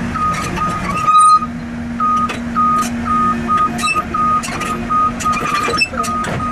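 Caterpillar tracked excavator tracking onto a steel frame: its travel alarm beeps about two to three times a second over the steady diesel engine, with metallic clanks and knocks as the steel tracks climb onto the steel frame.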